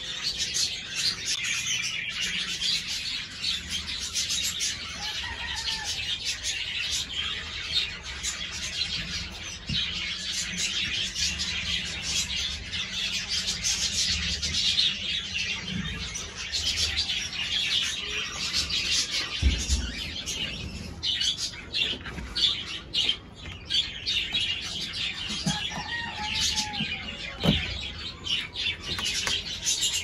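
Many aviary birds chirping and calling at once, a dense unbroken chatter, with a few dull low thumps in the second half.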